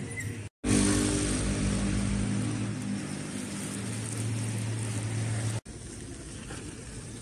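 A vehicle engine running close by, a steady hum under a loud hiss of street noise. It stops abruptly with a cut about five and a half seconds in, and quieter steady street noise follows.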